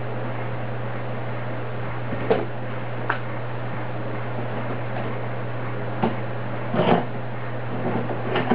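A handful of sharp knocks and clicks as a metal F-style bar clamp is picked up and fitted against a wooden leg, over a steady low hum and hiss.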